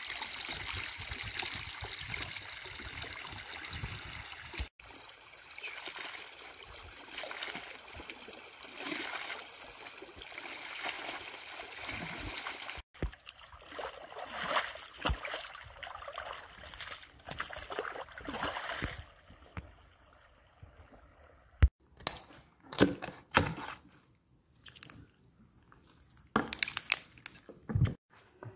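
Water trickling and running along a flooded field furrow, with sloshing as a shovel works the wet mud. In the last third it goes quieter, with several sharp knocks.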